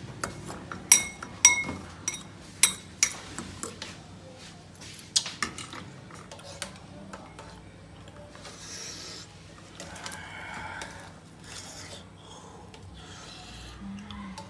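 Metal utensils and dishes clinking and scraping: a quick run of sharp, ringing clinks over the first six seconds, then softer scraping and rubbing.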